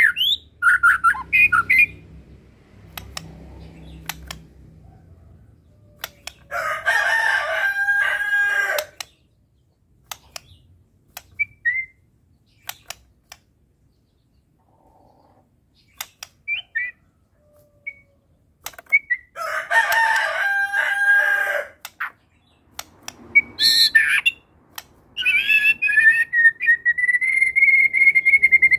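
White-rumped shama (murai batu) singing in bursts: short whistles and clicks, two loud harsh, rasping phrases a dozen seconds apart, and a long whistled note that rises and then falls near the end.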